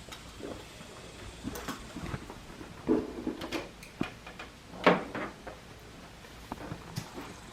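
Handling noises: a scattered run of clicks and knocks as a portable air compressor's hose and fittings are handled and packed away, the loudest about three and five seconds in. The compressor is switched off.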